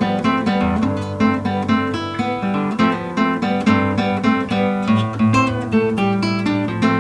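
Solo classical guitar played fingerstyle: a fast, continuous run of plucked notes over a repeating bass line.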